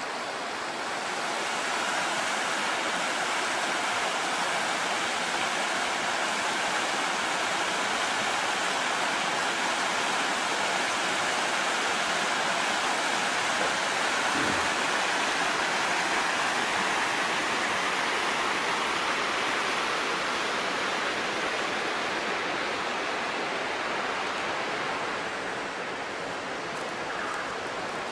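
River water rushing over rocks in shallow rapids, a steady hiss. It grows a little louder about a second in and eases off near the end.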